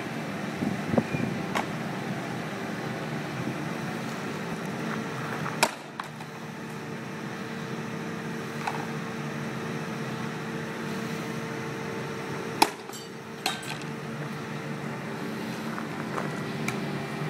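Sledgehammer striking a composite wall panel with glass-fibre skins over a core, laid across two box steel sections: two heavy blows about seven seconds apart, the second louder. A steady hum runs underneath.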